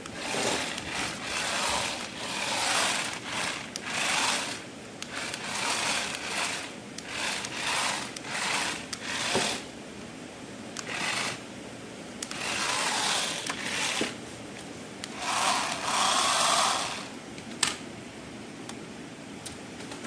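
Small electric motor of a remote-control toy whirring in repeated short bursts of about a second each, stopping and starting irregularly, with a few sharp clicks near the end.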